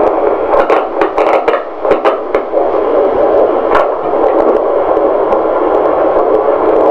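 Handheld fetal Doppler's loudspeaker giving steady hissing static as its probe is moved over a pregnant belly, still searching for the fetal heartbeat. Several sharp scraping clicks come in the first couple of seconds and one more near the middle, as the probe shifts on the skin.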